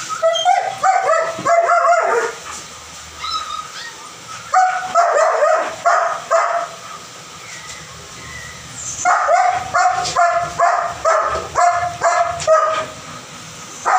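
A dog barking in quick runs of high-pitched yelps, in three bouts with short pauses between.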